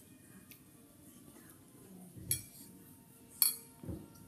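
Cutlery clinking against a dish: three sharp clinks, the loudest about three and a half seconds in, with a couple of dull thumps among them.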